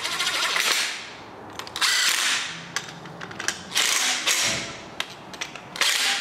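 DeWalt XR cordless impact driver with a 13 mm socket running down the bolts of an alternator idler bracket on an engine. It goes in four short runs of about a second each, with pauses between them.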